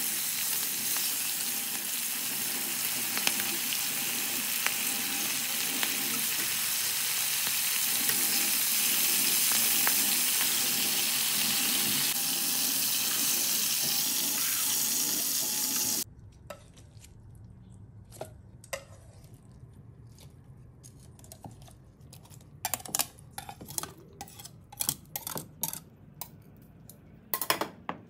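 Chicken deep-frying in hot oil: a steady, dense sizzle that cuts off abruptly a little over halfway through. Scattered light clicks and taps follow.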